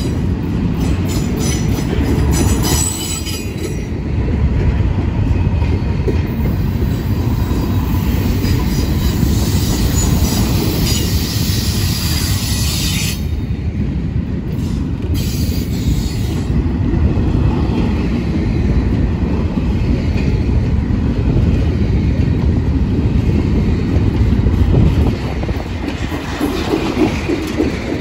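Intermodal well cars of a CSX freight train rolling past: a steady heavy rumble and clatter of steel wheels on the rails. A high-pitched wheel screech swells in the middle and cuts off suddenly about halfway through.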